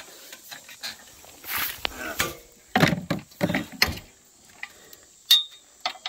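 Steel cart tongue being fitted by hand to an ATV's rear hitch: irregular metal clanks, knocks and scraping as the parts are pushed together and the hitch pin is worked in, with a short ringing metallic clink about five seconds in.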